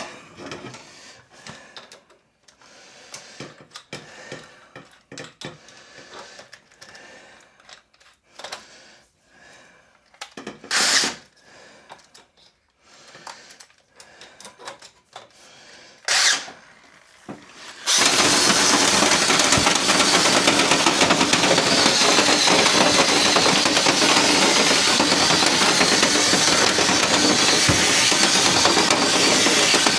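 A drill is hooked up to the rods of a dryer vent brush. It runs in two short bursts, then from a little past halfway runs steadily, spinning the rotary brush through the lint-clogged vent duct. Quiet handling clatter comes before it.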